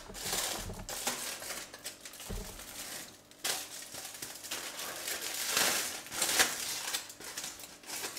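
Aluminium foil crinkling and rustling in irregular bursts as it is peeled open from around a wrapped chicken shawarma.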